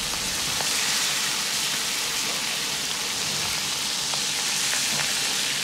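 Whole carp pan-frying in hot oil in a wok: a steady sizzle with scattered small pops.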